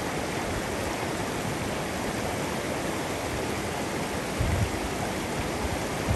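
Snowmelt mountain stream rushing steadily, with a brief low thump about four and a half seconds in.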